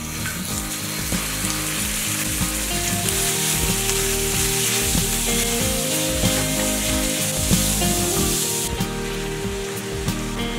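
Minced pork sizzling loudly as it drops into hot oil in a frying pan and is stirred and broken up with a wooden spoon. The sizzle eases off near the end.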